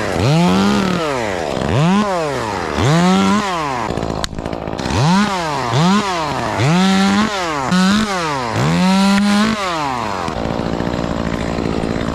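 Two-stroke chainsaw revved again and again, its engine speed climbing, sometimes holding briefly at full throttle, then falling back, about nine times, with a short lull around the middle.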